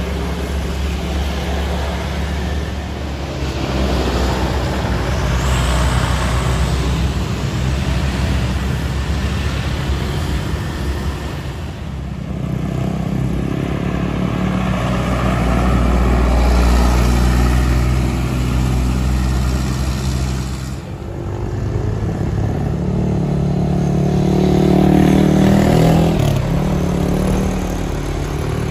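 Road traffic passing close by: light trucks, one loaded with sugarcane, cars and motorcycles, with low engine hum that swells and fades as each vehicle goes by, three times over.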